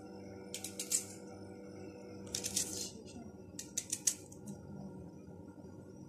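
Peeled white onions being broken apart by hand, the layers snapping and crackling crisply in a few short bursts over the first four seconds, over a steady low hum.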